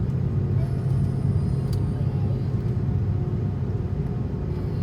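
Steady low rumble of an Airbus A330-300 airliner, with faint steady engine tones over it and one short click nearly two seconds in.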